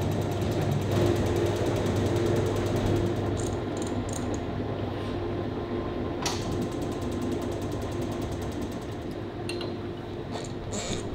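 Steady fan and electrical hum from running workshop equipment, with a few light clicks scattered through, the sharpest a little past the middle.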